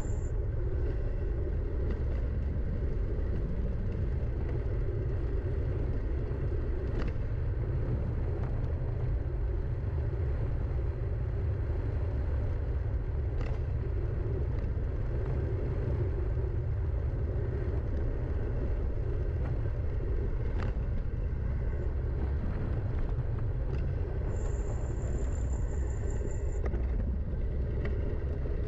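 Wind buffeting and tyre rumble on a camera riding down a forest trail, with a few sharp knocks from bumps and a brief high-pitched squeal a few seconds before the end.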